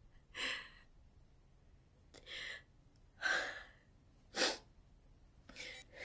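A woman's tearful breathing: five short gasps and sighs, roughly one a second, the loudest and sharpest a little after four seconds in.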